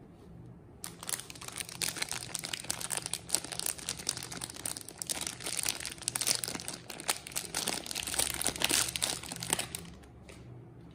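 Plastic wrapper of a Safeguard soap bar crinkling as it is pulled open and peeled off the bar by hand. It starts about a second in and stops shortly before the end.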